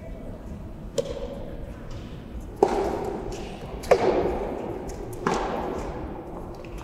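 Rubber soft-tennis ball struck by rackets four times, roughly every one and a half seconds, during a doubles rally; each hit is a sharp pop with a short hollow ringing tail, the first hit, the serve, softer than the rest.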